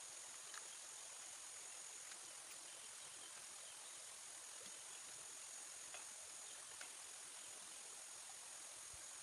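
Faint, steady high-pitched insect chorus, crickets or similar, with a few faint soft clicks scattered through.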